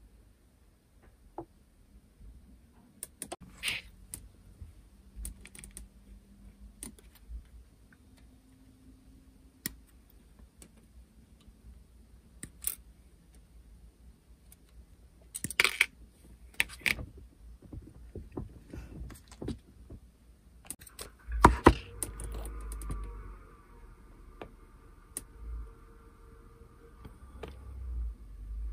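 Small clicks and taps of plastic model parts and tools being handled on a workbench, scattered and irregular. A sharp knock comes about 21 seconds in, then a steady hum starts and keeps going.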